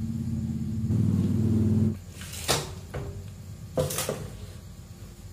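Plastic cup-sealing machine running: a steady motor hum that stops about two seconds in, then a few sharp knocks and clicks from the machine as it finishes sealing the lid film onto the cup.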